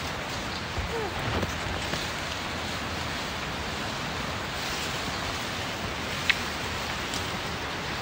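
Steady rush of water, an even hiss with no change in level, with one sharp click about six seconds in.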